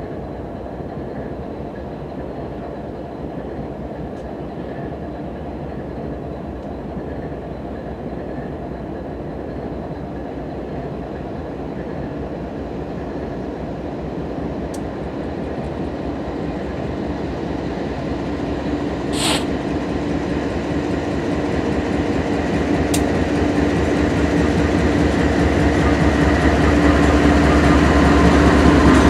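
Diesel freight locomotives at the head of a long covered-hopper train approaching and passing. The engines drone over wheel and rail noise, growing steadily louder and loudest as the locomotives go by near the end.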